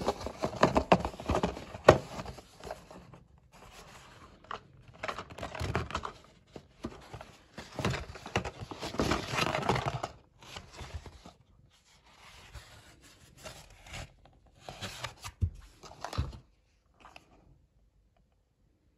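A kraft-paper Amazon mailer envelope being torn open and handled: paper tearing, rustling and crinkling in irregular bursts, which stop about sixteen seconds in.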